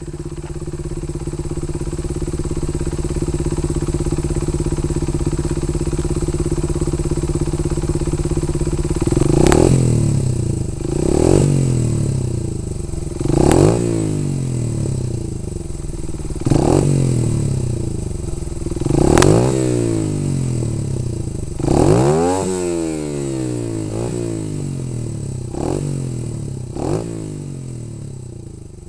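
Honda Ape's single-cylinder four-stroke engine running through a Nankai Power Comp aftermarket muffler. It idles steadily for about nine seconds, then is blipped with the throttle about eight times, each rev rising quickly and falling back to idle, and the sound fades out near the end.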